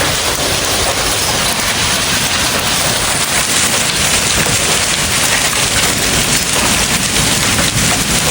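Heavy downpour of rain, a loud, steady hiss of rain falling hard.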